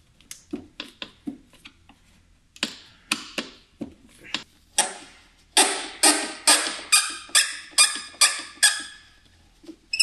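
A hand screwdriver working a stubborn T30 Torx fastener in the plastic cowl panel below the windscreen, on a fastener that will not come loose. Sharp clicks come sparsely at first, then in the second half a regular run of about two a second.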